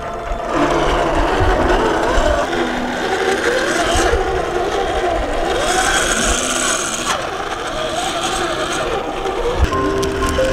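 Scale RC crawler truck's electric motor and geared drivetrain whining, the pitch rising and falling again and again as the throttle is worked while it crawls over rock ledges, with a few low thumps from the tyres and chassis on the rock.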